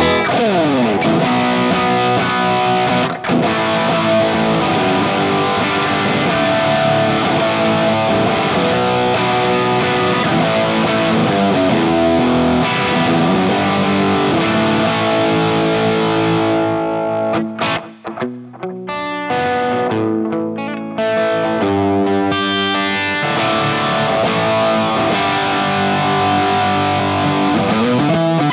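Distorted electric guitar played through a NUX Mighty Lite BT MKII amp modeler, with a 4x12 cabinet impulse response and spring reverb, riffing on chords. It opens with a downward pitch slide and turns to short, choppy stabs with gaps about two thirds of the way through.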